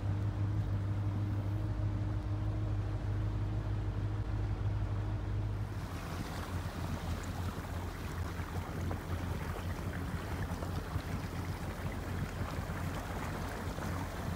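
MasterCraft ski boat under way, its inboard engine droning steadily. About six seconds in the sound changes to water rushing and splashing along the hull, with the engine hum fainter beneath.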